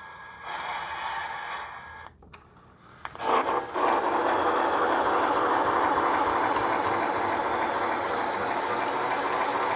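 Lionel Heisler model locomotive running on the track after being put into reverse: its motor and geared drive whir and rattle, with its RailSounds effects, loud from about three seconds in. Before that, a quieter steady humming tone, then a short lull.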